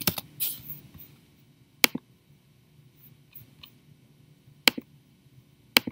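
Clicking at a computer: a few last keystrokes right at the start, then three sharp single clicks, about two, four and three-quarter, and just under six seconds in.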